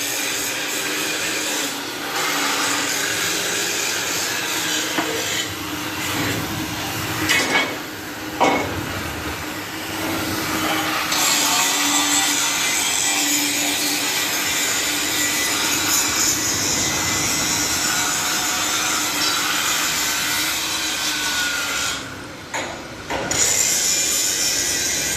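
Sheet-metal forming machine running with a steady, loud rasping and grinding of metal sheet passing through it, dropping off briefly about eight seconds in and again around 22 seconds.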